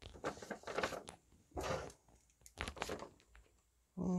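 A sheet of printed paper rustling and crinkling as it is handled, in a few short bursts.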